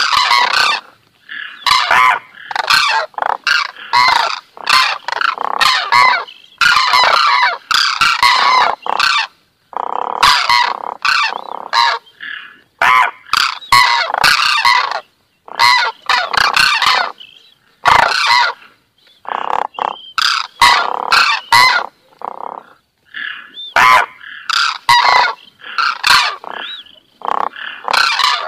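Common cranes calling: loud trumpeting calls that come in bursts of a second or two, with short breaks between them.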